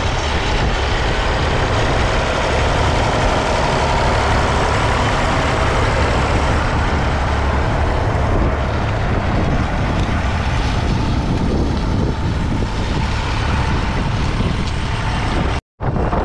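Massey Ferguson 35's 2.5-litre three-cylinder diesel engine running steadily under load as the tractor pulls a three-furrow mounted plough. The audio cuts out for a moment near the end.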